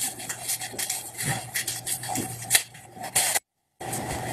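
Light clatter of objects being handled on a kitchen counter: a string of short clicks and knocks over a steady low hum. The sound drops out completely for a moment about three and a half seconds in.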